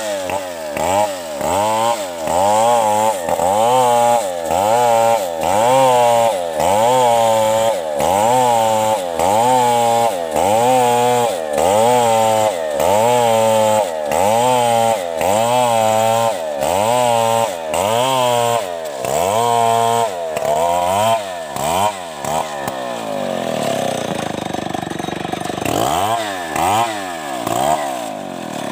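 Two-stroke chainsaw ripping lengthwise through a coconut palm trunk, its engine pitch rising and falling about once a second as the chain bogs down under load and picks up again. Near the end the cutting eases off, followed by a few short revs.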